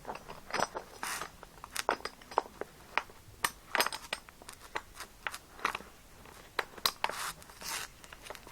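Irregular small clicks, knocks and short scrapes of a railed BMX seat clamp's metal pieces and bar being handled and worked together by hand as the bar is pushed through.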